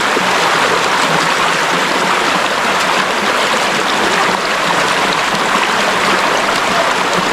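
Mountain valley stream running steadily: an even, continuous rush of flowing water.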